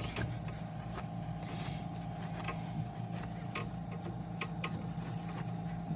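Steady machine hum from a puppy incubator's equipment (its oxygenator and humidifier unit) running, with a few light clicks.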